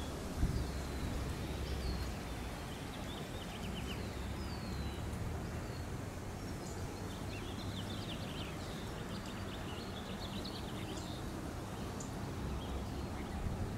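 Wind buffeting the microphone with a steady low rumble, while small birds call over it: a few short downward-sliding whistles and quick chattering trills, busiest in the second half.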